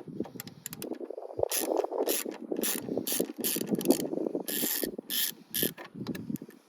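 Hands-on work on car trim and wiring: a busy, irregular run of rasping scrapes and sharp clicks, like plastic and cable being pushed and pulled into place, loudest in the middle.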